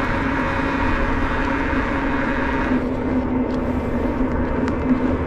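Wind rushing over the camera microphone as a loaded bicycle rolls along an asphalt road, with a steady low hum beneath. The higher hiss thins out about three seconds in.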